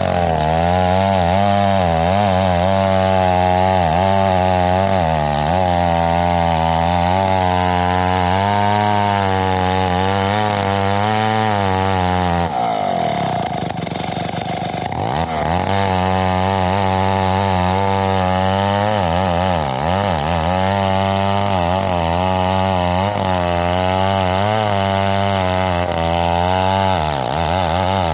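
Big two-stroke 070 chainsaw running at high revs, its pitch wavering as it works. About halfway through the revs drop sharply and climb back a few seconds later.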